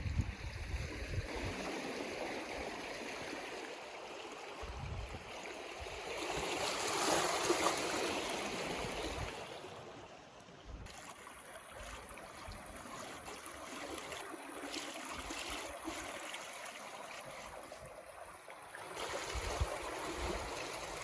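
Water washing steadily at a shoreline, swelling about six to nine seconds in, with a few low gusts of wind buffeting the microphone.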